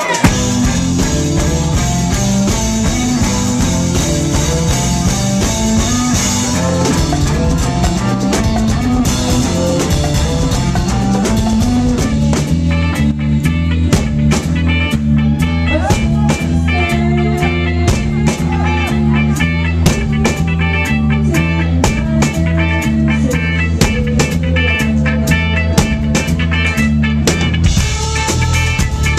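Live band playing a rock song with a steady low bass line and guitar. The drum kit comes in on a regular beat about twelve seconds in.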